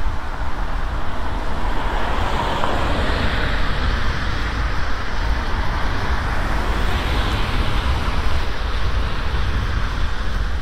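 Wind noise buffeting the microphone on a moving bicycle, with road traffic passing: tyre noise swells and fades about two seconds in and again about seven seconds in.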